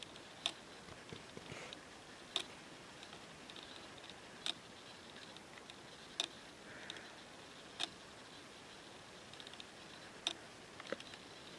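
Faint, sharp clicks, roughly one every two seconds, over quiet room tone.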